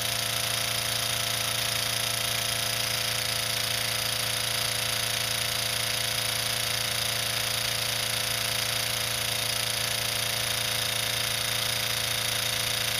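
PM Research No. 7 twin-cylinder model steam engine running very fast on 20 psi of compressed air, a steady rapid mechanical beat. At this pressure it is running a bit hot, faster than its best speed.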